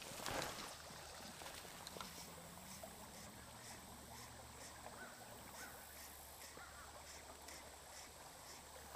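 Fly line swishing down onto the water just after the start of a cast, then quiet creek ambience with soft water movement as the line is retrieved.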